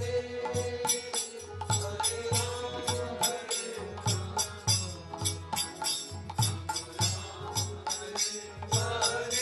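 Kirtan instrumental interlude: a harmonium holds a sustained reed note over a steady beat of small hand cymbals and drum strokes.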